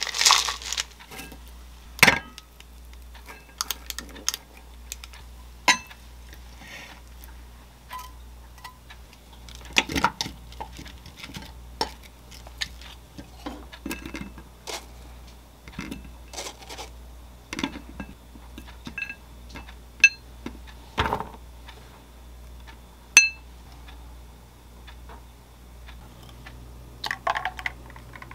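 Scattered clinks and taps of dishes and utensils against a small glass bowl and a plate as a yogurt bowl and breakfast plate are put together, some with a short ringing tone. Near the end, a brief pour into a cup.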